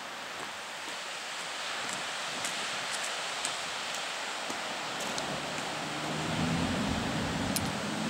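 Steady hiss of wind and surf along an open seashore, with a few faint ticks. About five seconds in, a low rumbling hum rises underneath.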